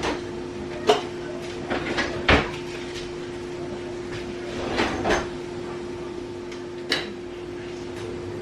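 Scattered knocks and clicks of kitchen things being handled, a coconut oil jar and utensils against a pan, over a steady hum.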